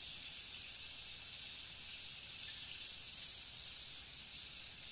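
Steady high-pitched hiss of background ambience, with a faint pulsing near the top and no distinct bird calls.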